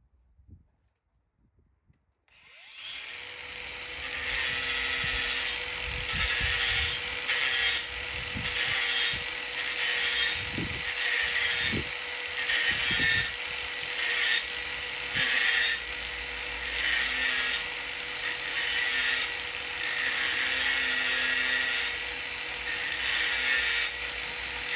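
Hand sanding of car primer with a flexible sanding block, an abrasive rasp going back and forth in even strokes about once a second. It starts about two seconds in.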